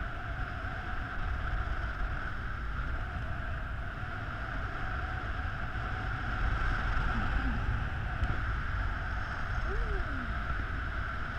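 Wind buffeting the microphone of a pole-mounted action camera on a paraglider in flight: a steady low rumble with a constant high tone running through it.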